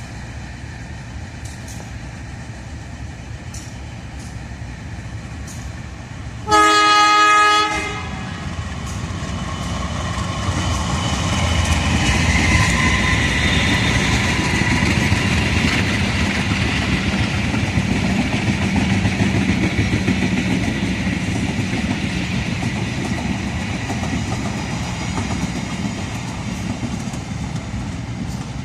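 CC 201 diesel-electric locomotive hauling a passenger train gives one horn blast of just over a second, then the train runs through the station, its engine and the wheels clattering over the rail joints growing louder, staying at their loudest for several seconds, then slowly fading.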